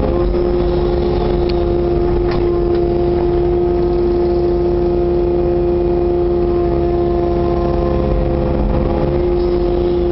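Kubota KX080-4 compact excavator's diesel engine and hydraulics running steadily under load as the machine digs and slews, heard from inside the cab, with a steady hum and a faint knock about two seconds in.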